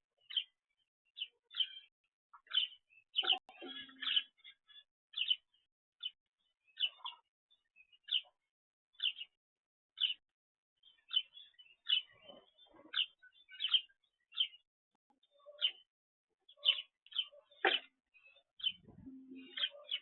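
Small birds chirping: a steady run of short high chirps, about one or two a second, with a few faint low thumps among them.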